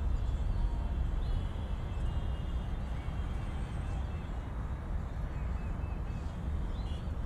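Street ambience: a steady low rumble of traffic.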